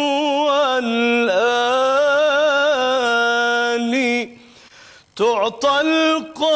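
Solo male voice chanting an unaccompanied Islamic ibtihal (religious supplication): one long ornamented held note that wavers in pitch, a brief break for breath about four seconds in, then the chant resumes.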